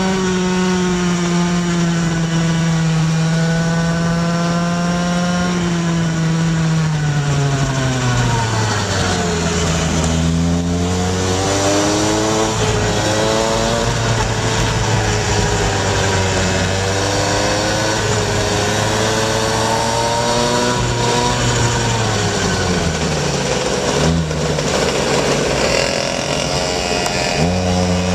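Small two-stroke engines of gas Go-ped scooters running at speed, a steady buzz with more than one engine note overlapping. The pitch falls about eight seconds in as the throttle eases, dips again past twenty seconds, and climbs back sharply near the end.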